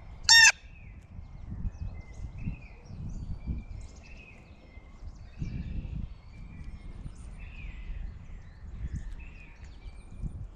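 Backyard birds calling at a feeder. One loud, short call comes just after the start, followed by a steady series of short, quick call notes, with soft low thumps underneath.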